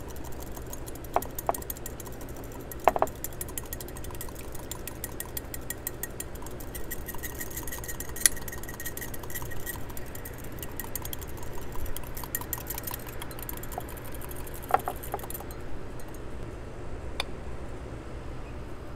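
Whisk beating a mustard vinaigrette in a bowl: a rapid run of fine clicks of the wires against the bowl, with a few louder clinks, stopping suddenly about three-quarters of the way through. A low steady hum runs underneath.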